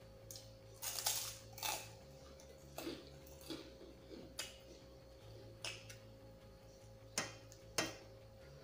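Close-miked mouth sounds of a person eating by hand: short wet chewing and lip-smacking clicks, in scattered bursts, the loudest about a second in and near eight seconds.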